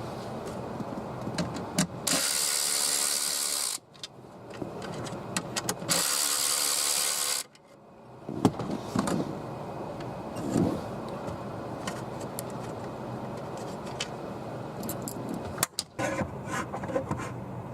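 A cordless drill-driver runs twice, about a second and a half each time, backing out the screws that hold a broken glove box latch. Between the runs there are scattered clicks and rattles of parts being handled.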